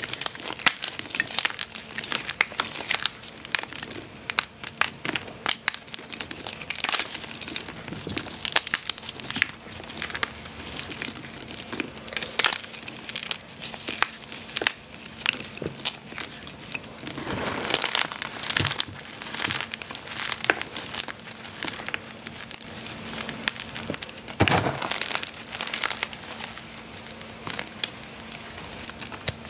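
Hands crushing and crumbling blocks of fresh and reformed gym chalk (EasyGrip, Nexo and Reform): continuous dense crunching and crackling with sharp snaps of pieces breaking, louder clusters of crunches about seventeen to nineteen seconds in and again about twenty-four seconds in.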